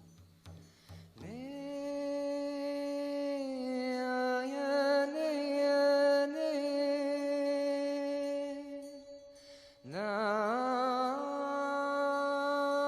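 Music: the last low drum strokes fade out, then a single voice sings long held notes, swooping up into each phrase with small ornaments on the held pitch. A short gap comes before a second phrase near the end.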